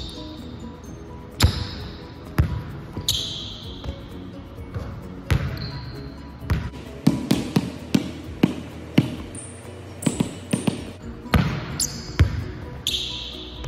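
Basketball bouncing on a hardwood gym floor: a few single bounces, then a quick run of dribbles about halfway through, with a few short high squeaks between. Background music plays underneath.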